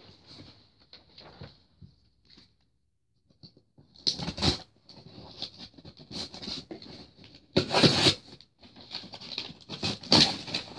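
Packaging being opened by hand: irregular scratching, crinkling and rustling, with louder bursts about four seconds in, around eight seconds and again near the end.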